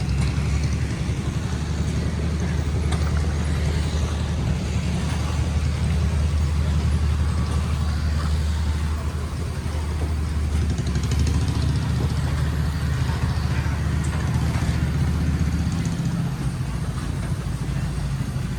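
An engine running steadily with a low rumble. The deepest part of the rumble drops away about three-quarters of the way through.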